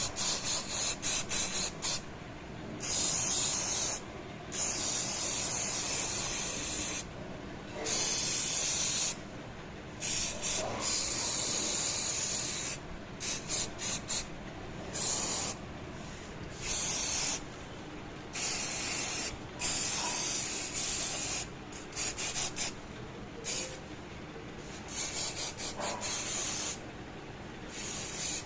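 Protective coating being sprayed onto an air conditioner in repeated hissing bursts, some quick and clustered, a few held for one to two seconds, over a steady background noise.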